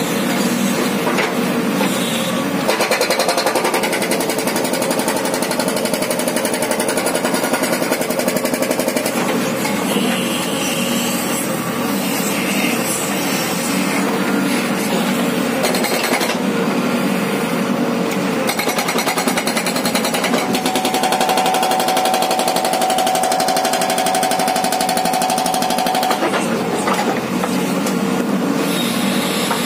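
Hydraulic rock breaker on a JCB 3DX backhoe hammering rock with rapid, continuous blows, over the backhoe's engine. A steady whine joins in for several seconds past the middle.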